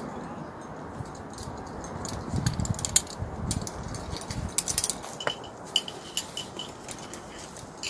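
Metal climbing hardware, carabiners and quickdraws on a harness rack, clinking and jangling in scattered sharp clicks as a climber moves up the rock on lead, over a steady background rush.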